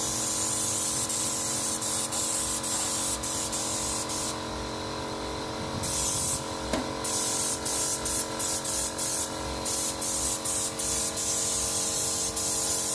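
Pressure washer spraying water steadily, with its pump motor humming underneath; the spray stops for a moment a few times, longest for about a second and a half near the middle.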